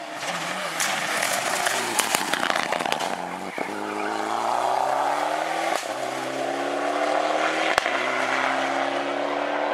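Rally car engine accelerating hard through the gears, its pitch climbing and dropping back at three upshifts about two seconds apart, with a sharp crack at each shift. Before the first shift, a rough noisy rush with crackles.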